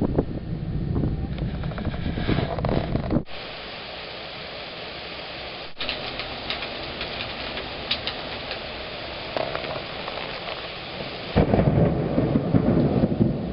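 Thunder rumbling over steady rain. The rumble stops abruptly about three seconds in, leaving rain pattering, and a second loud rumble of thunder starts near the end.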